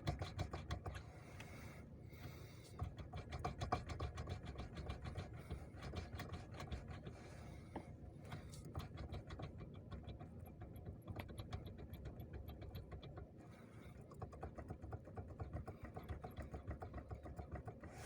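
Rapid run of light mechanical knocks from a 2007 Renault Megane 2's steering column: knocking in the column itself, which the owner places in the column rather than in the steering shaft's universal joints.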